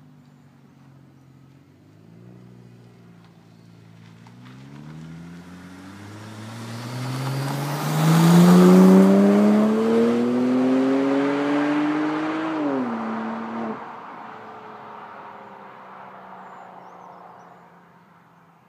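BMW 535xi's twin-turbo N54 straight-six, run with the muffler deleted and resonators in place of the secondary cats, accelerating hard past and away. The engine note climbs steadily in pitch and is loudest as the car goes by, then drops sharply and fades into the distance.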